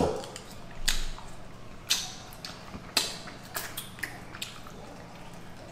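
Eating sounds from someone eating fried chicken wings: a handful of short, sharp crunches and mouth smacks, roughly one a second.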